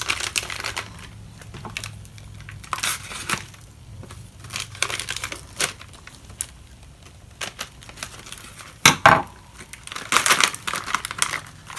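Crinkling and rustling of a foil-laminate MRE pouch being handled, with crumbled sugar cookies shaken out of it onto a stainless steel tray. The loudest crackles come about nine to eleven seconds in.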